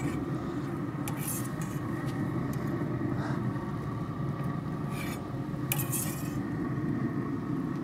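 Metal clinks and scrapes as racks of ribs are lifted off the pellet grill's metal grate onto a wooden board, with a few sharp clinks about a second in and again around three, five and six seconds in. A steady low rumble runs underneath.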